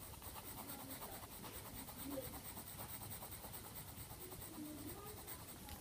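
Faint, rapid scratching of a nail-art dotting tool stirring nail polish on a sheet of paper.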